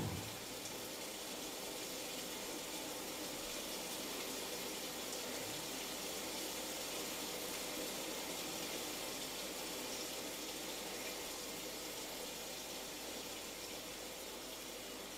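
Steady hiss of falling rain, easing off slightly near the end.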